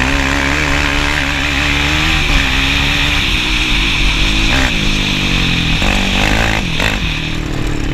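Sport quad's single engine running hard along a dirt track, its revs dropping and climbing again a few times as the throttle is eased and reopened.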